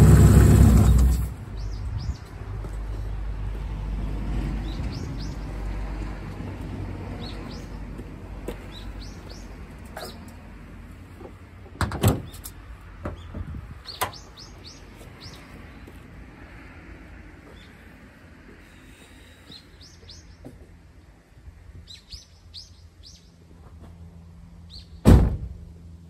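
Straight-piped Nissan S13 Silvia 2.2 L engine on four individual throttle bodies, running and then cutting out about a second in. After that, birds chirp on and off, with a couple of sharp clicks in the middle and one loud thump near the end.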